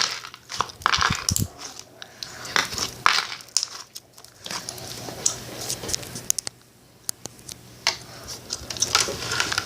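Irregular small clicks and crackles from close handling, with a quieter stretch a little past the middle.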